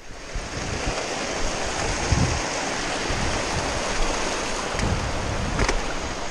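Mountain creek rushing over rocks, a steady even hiss of water, with a few short low thumps.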